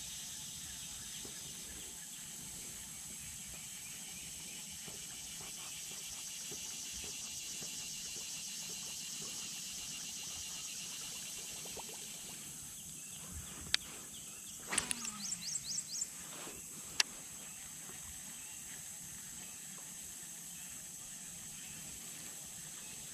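Steady high-pitched insect-like drone over still outdoor ambience. About two-thirds of the way through comes a brief cluster of sharp clicks and a quick run of pulses with a falling sweep.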